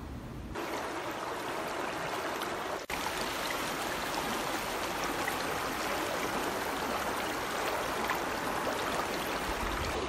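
Mountain river running over rocks: a steady rush of flowing water that comes in about half a second in, with a momentary break about three seconds in.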